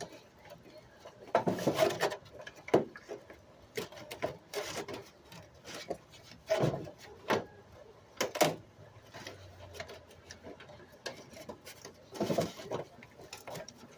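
Irregular knocks, scrapes and rustles of hands handling parts and material while working on a register vent, with louder rough scraping bursts about 1.5 s, 6.5 s and 12 s in.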